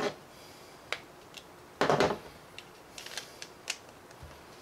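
Small plastic blaster parts and hand tools clicking and tapping on a worktable. A sharp click comes about a second in, a louder scraping sound lasts about half a second around two seconds in, and a few light ticks follow.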